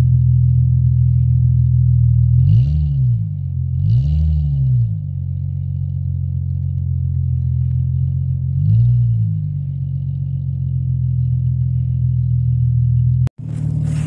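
Nissan 350Z's 3.5-litre V6 idling steadily, revved briefly three times with the pitch rising and falling each time.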